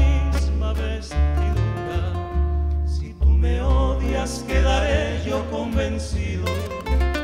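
Live bolero played by a trio: nylon-string classical guitars picking over a double bass and bongos, with a man singing.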